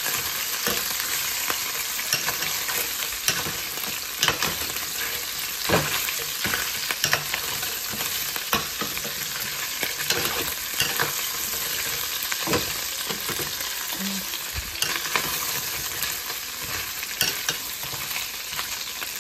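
Rib pieces sizzling steadily as they brown in oil in a stainless steel pan, with a metal utensil scraping and clinking irregularly against the pan as the meat is turned.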